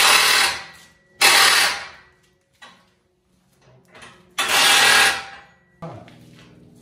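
Impact wrench running in three bursts of about a second each, tightening the bumper's mounting bolts all the way in.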